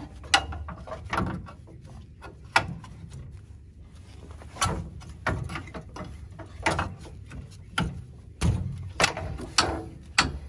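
Irregular metal clanks and knocks, about a dozen, as a compressed coil spring held in screw-type spring compressor clamps is worked by hand into the rear axle spring perch of a Jeep Wrangler TJ.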